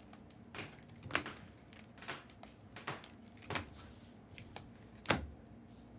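Trading cards being handled on a table: a handful of light, scattered taps and clicks, the loudest about five seconds in.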